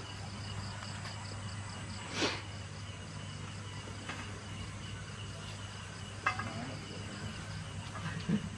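Insects chirping steadily with a fast pulsing buzz, over a steady low hum. A brief swish comes about two seconds in.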